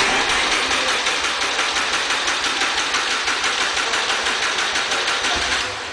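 Starter motor cranking the smart Brabus Roadster's hand-built 1.4 V6 bi-turbo engine (two 698cc turbocharged three-cylinders joined) in a fast, even churn that starts suddenly and stops after about six seconds. It is a long crank of an engine that has not been started for some time.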